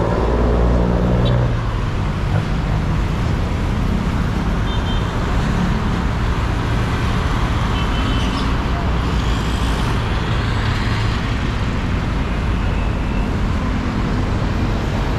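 Steady road traffic noise, with a nearby vehicle's engine hum that fades out about a second and a half in.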